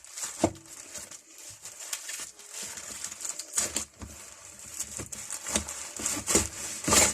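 Packaging crinkling and rustling as pipe wrenches are unwrapped and handled, with a few sharper knocks among the rustle.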